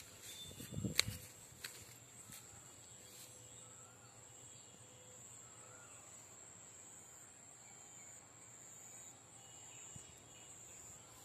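Faint outdoor ambience: a steady high-pitched insect drone, with a few faint bird chirps and a sharp click about a second in.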